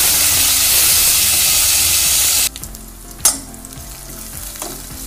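Chopped onions, green chillies, mint and coriander sizzling in hot oil in an aluminium pot while being stirred with a perforated metal spoon. The loud sizzle cuts off abruptly about halfway, leaving quieter stirring with small clicks and one sharp knock a little over three seconds in.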